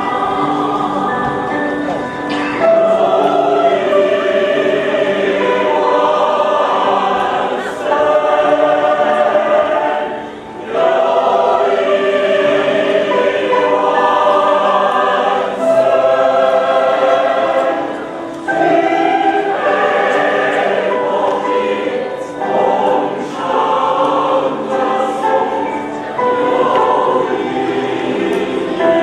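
A choir singing in several parts, in long phrases of held notes with brief breaks between phrases.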